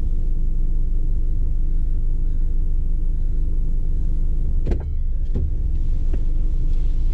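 Car's engine idling with a steady low hum, heard from inside the cabin. Two sharp clicks come about four and a half and five and a half seconds in.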